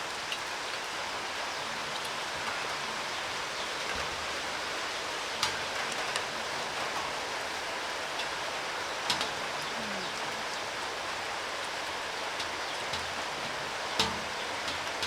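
Steady hiss of rain falling outdoors. A few sharp clicks or taps cut through it about five, nine and fourteen seconds in, the last one the loudest.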